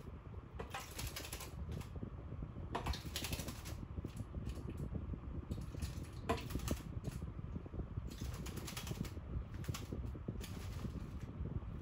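Young Steller's jay bathing in a bowl of water: about six short bouts of splashing and wing-fluttering, over a steady low hum.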